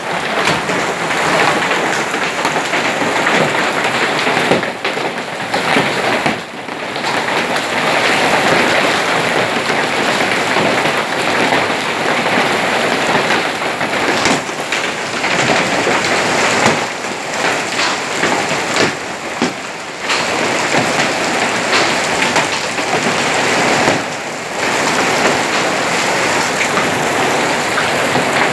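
Hail and heavy rain pelting down: a dense, loud, unbroken clatter of countless impacts.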